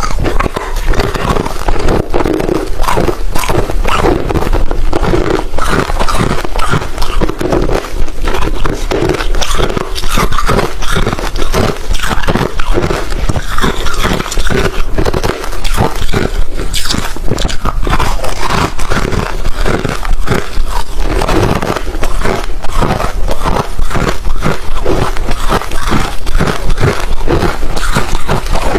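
A person biting and chewing hard refrozen crushed ice close to the microphone, a dense unbroken run of crunches.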